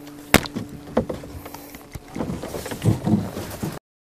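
Sharp knocks and clicks of a landed trout and tackle being handled in a boat, over a faint steady hum in the first half. The sound drops out completely just before the end.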